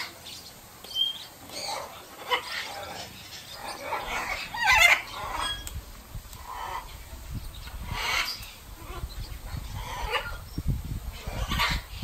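Parrots calling from the aviaries: scattered harsh squawks and screeches from several birds, the loudest about five seconds in.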